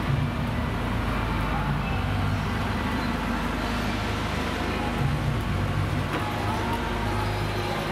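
Passenger coaches rolling slowly past along a station platform: a steady low rumble and hum from the wheels and running gear.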